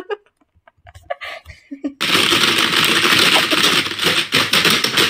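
Frantic, rapid typing on a computer keyboard: keys clattering in a dense, loud stream that starts suddenly about two seconds in, after a few faint scattered clicks.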